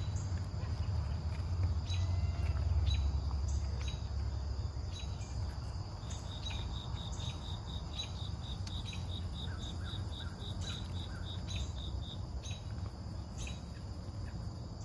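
Insects, such as crickets, chirping outdoors. There is a steady high-pitched trill, and a run of quick, even chirps, about three a second, starts about six seconds in. A low rumble is heard under it at first and fades after a few seconds.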